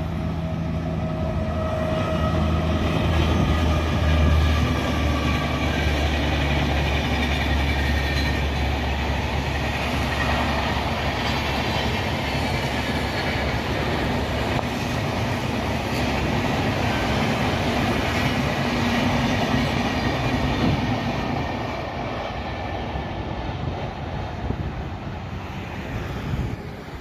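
An Indian Railways express hauled by a WAP-5 electric locomotive running past, with a continuous rumble of wheels on rail. A pitched whine sounds over it for the first five seconds or so, and the rumble fades over the last few seconds as the train draws away.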